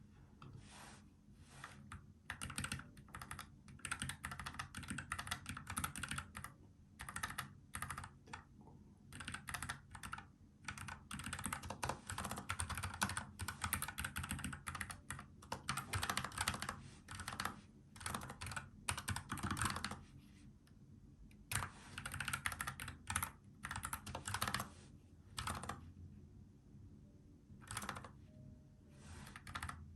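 Typing on a NuPhy Air75 low-profile mechanical keyboard with tactile brown switches: fast runs of key clacks broken by short pauses.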